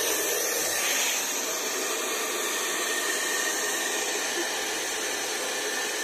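Hair dryer running with a steady rushing hiss, blowing air into a balloon taped over its nozzle.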